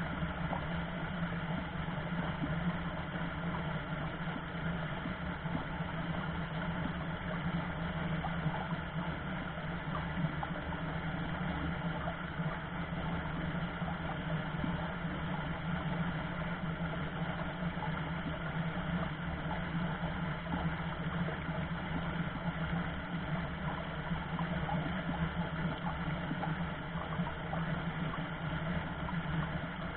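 Shallow rocky river running over small rapids: a steady, even rushing of water with a strong low hum and no break.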